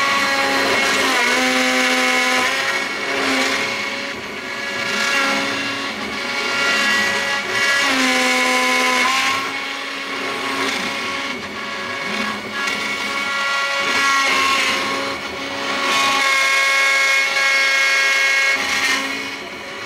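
Mini CNC engraving machine cutting wood with a V-bit: the spindle runs steadily under the noise of the cut. Whining tones step up and down in pitch every second or so as the machine moves.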